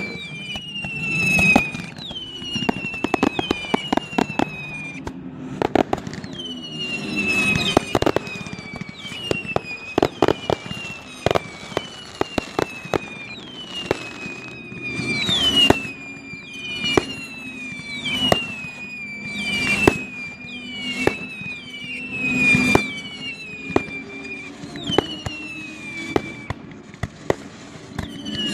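Pyrotechnic display: whistling fireworks go off one after another, roughly one a second, each a whistle falling in pitch. Many sharp cracks and bangs are mixed in among the whistles.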